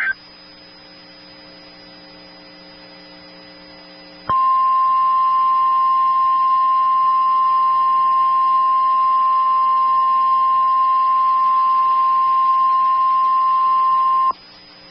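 Emergency Alert System attention tone for a severe thunderstorm warning. After about four seconds of low hum, a single steady high tone sounds for about ten seconds and then cuts off sharply. It signals that a spoken warning message is about to follow.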